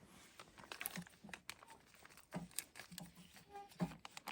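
Faint, scattered rustling and light clicks of handling noise.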